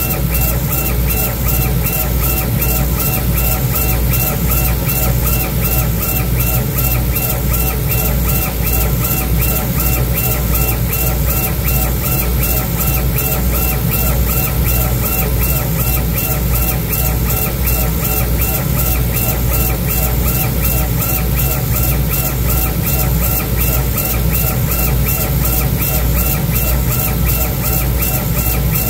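Laser engraver running with its head traversing the work, mixed with background music that has a steady beat.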